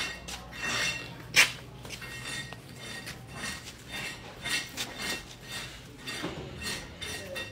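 A metal hoe blade knocking against brick paving, with one sharp clink about a second and a half in, followed by scattered lighter clicks and scuffs.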